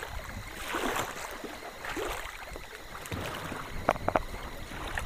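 Kayak paddle strokes swishing through lake water, with a few sharp knocks about four seconds in.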